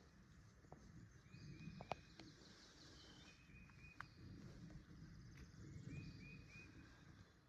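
Faint birdsong: one bird repeats a quick phrase of three or four short notes every couple of seconds, with thin higher notes from other birds, over a low rumble. Two sharp light clicks come about two and four seconds in.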